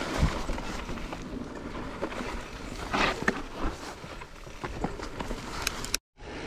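Mountain bike rolling over a dirt trail: uneven tyre and trail noise with scattered clicks and knocks from the bike. The sound cuts out to silence briefly near the end.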